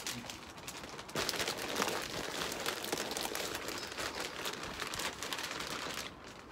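Potting compost pouring out of a plastic bag onto a wooden bench, the soil pattering down while the bag's plastic crinkles. The pour starts about a second in and eases off near the end.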